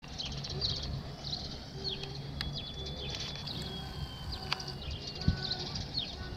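Small birds chirping and twittering over a steady low rumble, with one sharp thump a little past five seconds in.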